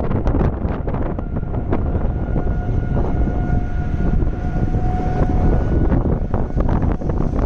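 Strong wind buffeting the microphone with a heavy, constant rumble and scattered crackles, while a steady siren tone, typical of a tornado warning siren, sounds from about a second in to about five and a half seconds in.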